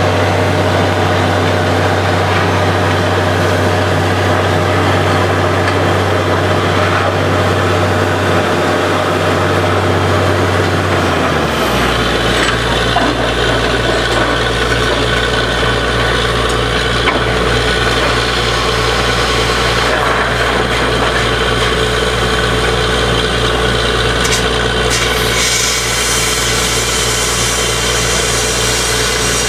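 Truck-mounted borewell drilling rig running steadily, its engine and air compressor droning while air is blown down the hole. About twelve seconds in, the deep engine note drops lower and stays there.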